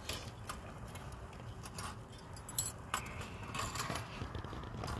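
Irregular light clicks and metallic taps of long metal tongs against an iron flatbread griddle (saj), with a few louder clinks a little past the middle.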